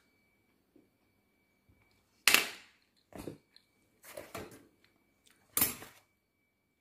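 Four short, loud scraping and rustling noises right at the microphone, each dying away quickly, as things on the counter are handled next to it. A faint steady high tone runs underneath.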